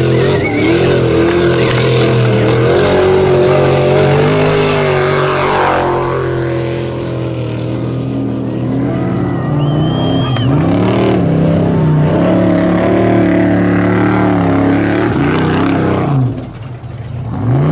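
Trophy Truck Spec off-road race trucks passing one after another, their engines revving hard with the throttle rising and falling. The engine sound drops away briefly near the end before the next truck comes up.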